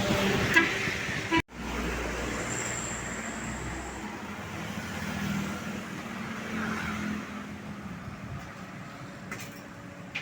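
Roadside traffic: vehicle engines and tyre noise from passing road vehicles. The sound cuts out abruptly for an instant about a second and a half in.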